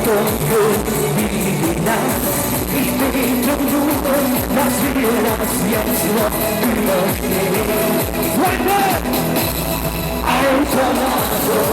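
Loud Schlager pop music: a singing voice over a steady electronic dance beat.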